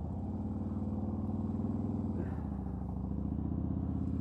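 Motorcycle engine running steadily while riding, its pitch dipping slightly about two seconds in.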